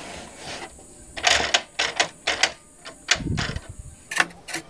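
Irregular plastic clicks and taps from hands handling the parts of an opened Canon PIXMA MG2440 inkjet printer, with a duller knock a little past three seconds in.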